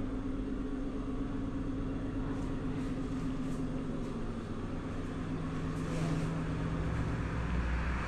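A steady low mechanical hum, its tone shifting lower about five to six seconds in, with a few faint ticks.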